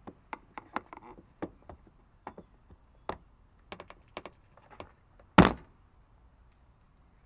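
Plastic bumper-cover retaining clips being pried out with a screwdriver: a string of irregular clicks and taps, then one loud thunk about five and a half seconds in.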